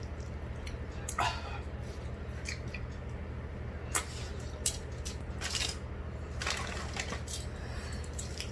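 Eating sounds of spicy instant noodles: a few short slurps or sharp breaths and small clicks of utensils against a bowl, over a steady low hum.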